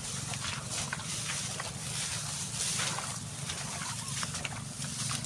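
Footsteps through tall grass, with stalks swishing and brushing against legs and gear, over a steady low hum.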